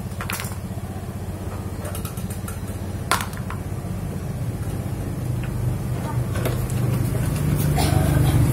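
Washing machine wash motor running with a steady hum that grows louder toward the end, broken by a few sharp clicks.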